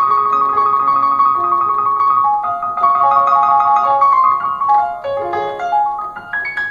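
Electronic keyboard on its grand piano voice, played without a sustain pedal: a melody of single notes over chords, with a high note held for about two seconds near the start.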